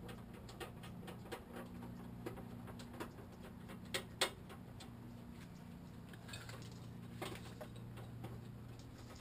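Faint scattered clicks and ticks of metal hardware being handled while a rear bumper bolt is started by hand, with two sharper clicks about four seconds in, over a steady low hum.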